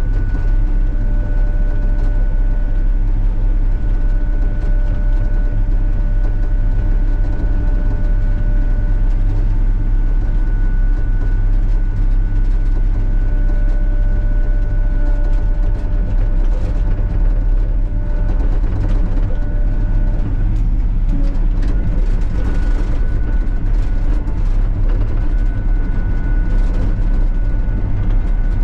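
Sany SY35U mini excavator's diesel engine running steadily under working load, with a constant high whine over the low engine drone, as the bucket pushes gravel. Scratchy scraping noise joins in over the second half.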